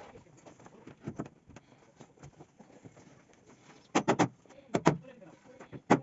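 Hammer striking a wooden door rail to knock it onto the frame: a quick run of three sharp knocks about four seconds in, then two more just before five seconds, with a few faint taps earlier.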